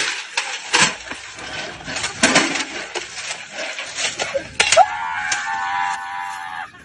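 A scuffle at a metal patio table: several sharp slaps and knocks, with metal table, tray and chairs clattering. Near the end comes a long, high-pitched yell.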